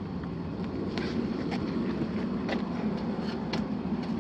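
Steady low hum with a scattering of short clicks and crinkles, about seven of them, like things being handled or brushed against.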